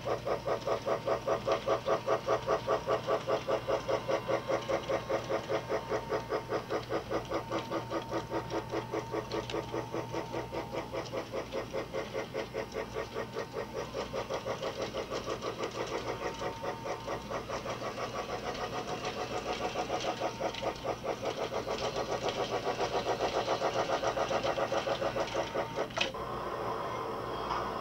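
Battery-powered toy train running on its plastic track: a fast, even chugging rhythm over a steady motor hum. Near the end a click, and the chugging stops.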